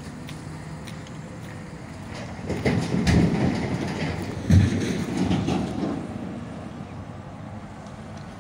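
Rumbling, rattling road-vehicle noise over a steady low hum. It swells about two and a half seconds in, peaks near the middle, and fades out by about six seconds.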